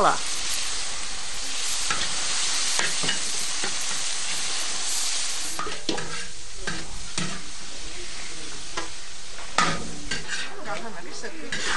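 Bok choy and bean sprouts sizzling hard in a large wok over a high open flame, just after dark soy sauce is added, with a metal wok ladle scraping and knocking against the wok as the vegetables are tossed. The hiss is densest for the first half; after that the scrapes and knocks of the ladle stand out more.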